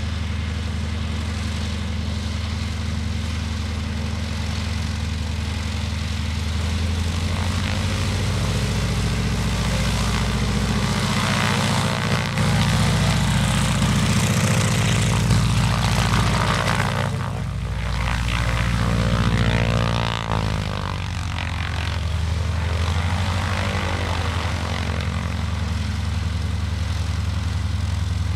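North American SNJ-6 Texan's Pratt & Whitney R-1340 nine-cylinder radial engine running on the ground, propeller turning. Engine power comes up about seven seconds in and is held, then falls off with a dropping pitch about twenty seconds in, and the engine runs steadily at the lower setting.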